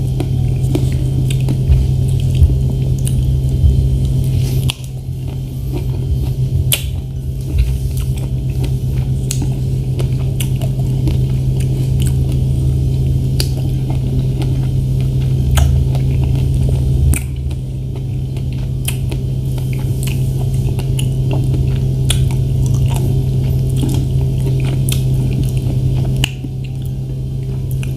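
Close-up chewing and biting of fresh strawberries, with frequent short sharp mouth clicks, over a steady low hum.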